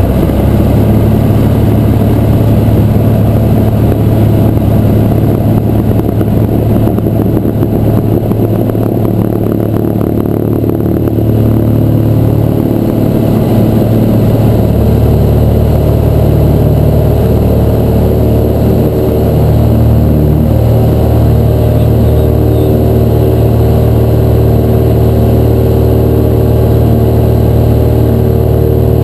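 Cessna 172's six-cylinder Continental O-300 engine and propeller running at takeoff power through the takeoff roll and climb-out, heard from inside the cockpit as a loud, steady drone. The drone settles into a smoother, even hum about halfway through.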